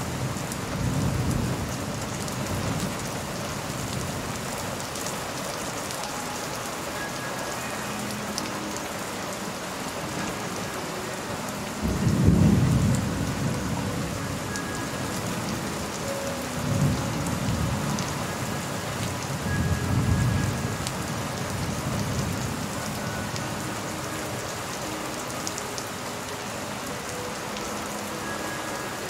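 Steady rain falling, with rolls of thunder: the loudest rumble comes about twelve seconds in, with weaker rumbles near the start and twice more a few seconds after the loud one.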